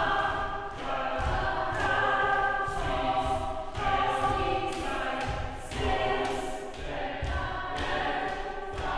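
A small group of women singing together without accompaniment, in short phrases that break and start again every second or two.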